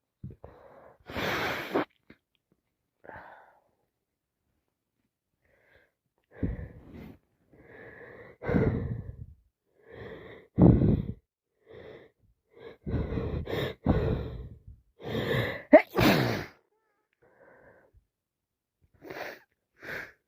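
A person with a head cold gasping and wheezing through a run of breaths, breaking into loud sneezes. The loudest sneezes come about halfway through and again about three-quarters through.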